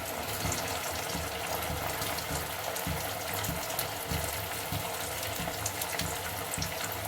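Colocasia (taro root) pieces deep-frying in hot oil in a kadai: a steady, dense sizzle with fine crackling.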